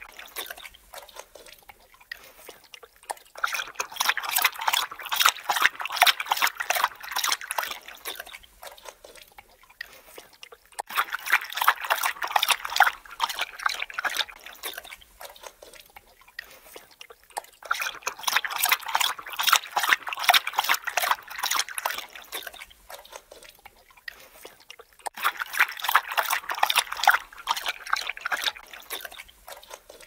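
Dog lapping water, rapid wet laps in bouts of about four to five seconds, with pauses of a second or two between.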